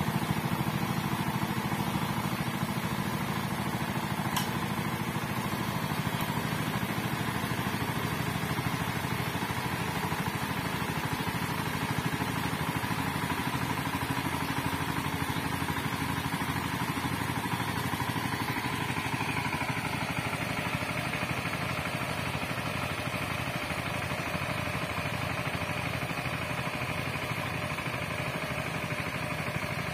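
Small walk-behind power tiller's engine running steadily while it cuts a furrow through the soil, slowly fading as the machine moves away.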